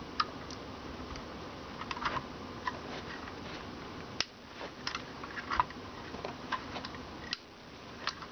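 Irregular small clicks and taps of hand work on metal and plastic parts, as the new rack gear is screwed into a Dunlop Cry Baby wah pedal, over a steady low hiss.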